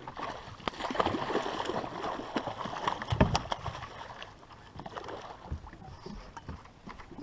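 A hooked fish thrashing and splashing at the water's surface beside the boat as it is played on a rod, busiest and loudest about three seconds in, then settling to lighter splashes.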